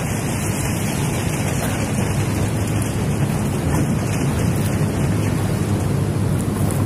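Steady rushing of a fast-flowing river over rocks.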